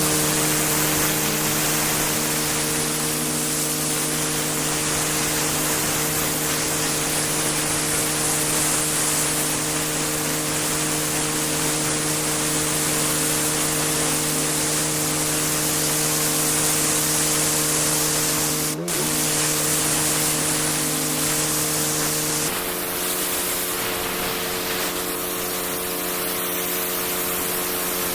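Pressure washer jetting water onto block paving: a steady loud spray hiss over the machine's even drone. There is a short break about two-thirds of the way through, and the drone changes pitch soon after.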